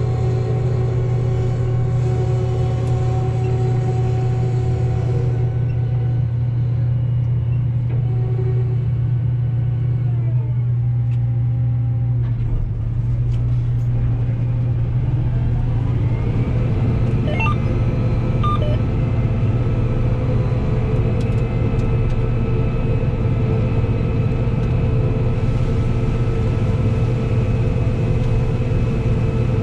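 Combine harvester running steadily during soybean harvest, heard as a loud, even hum. About a third of the way in, some of its higher tones drop, then climb back to a steady pitch.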